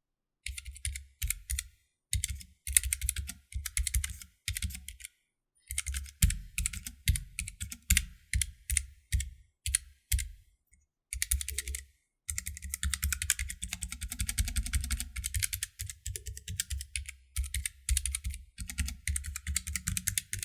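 Typing on a Keychron K3 V2 low-profile mechanical keyboard with red optical switches: runs of quick keystrokes in bursts with short pauses, the keyboard not too loud and not rattly.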